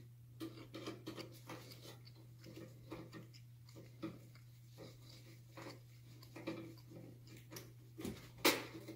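Small scattered clicks and taps from a screwdriver working screws out of a metal shower panel, with the tool and panel being handled. A louder knock comes near the end, over a steady low hum.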